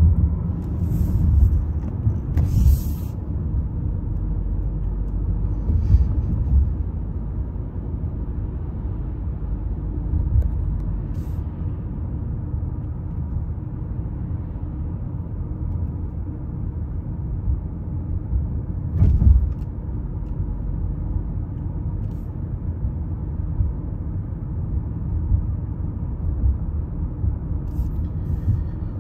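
Steady low rumble of road and engine noise inside a moving car's cabin. A few short knocks break through it, the strongest about two-thirds of the way in.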